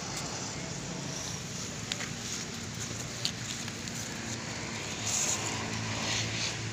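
Steady outdoor background noise with a low hum, broken by a few sharp clicks; the hiss grows louder for a second or so near the end.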